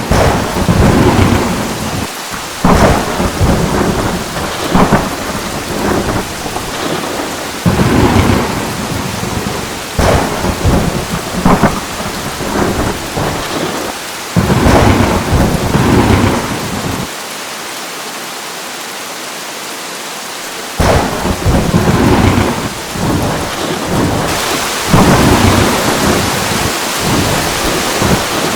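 Thunderstorm: rolls and cracks of thunder every few seconds over steady rain. There is a lull of a few seconds with rain alone about two-thirds of the way through, and the rain grows heavier near the end.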